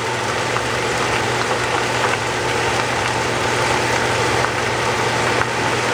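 Baby bok choy sizzling and steaming in a very hot sauté pan with white wine and soy sauce in it, with faint small crackles, over a steady low drone.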